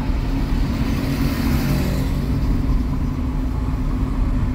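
Car engine and tyre noise heard from inside the cabin of a moving taxi: a steady low drone with a hiss that swells and fades about a second or two in.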